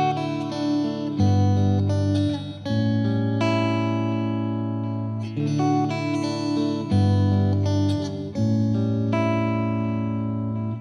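Guitar music: plucked and strummed guitar chords, changing every second or so over a steady bass.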